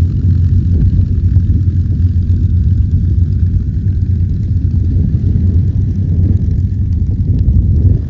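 P-51 Mustang's piston engine and propeller giving a loud, steady low drone in flight.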